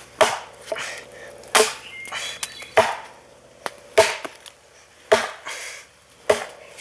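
Hatchet chopping into a split log: six sharp strikes about a second and a quarter apart, with a few lighter knocks in between.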